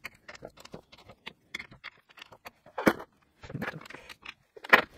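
Rapid clicks, taps and knocks of hands handling and fitting an airsoft L85's rail handguard onto the receiver, sped up four times. Two louder knocks stand out, one about three seconds in and one near the end.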